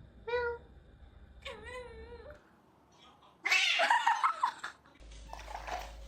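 A cat meowing: a short call, then a longer wavering yowl. A loud harsh outburst follows about three and a half seconds in.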